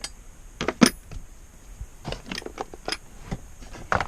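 Small metal hand tools and drill bits clinking and clattering as they are handled and sorted, with a string of short sharp clacks, the loudest about a second in.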